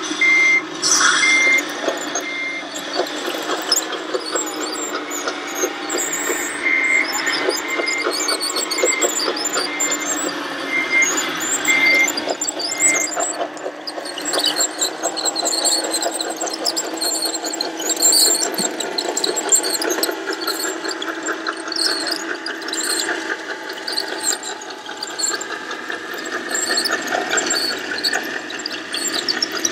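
Radio-controlled tracked loader, a model of a Liebherr LR 634, driving and turning. Its electric drive gives a wavering, squealing whine that rises and falls with speed. Short high beeps come in two runs, in the first few seconds and again about seven to thirteen seconds in.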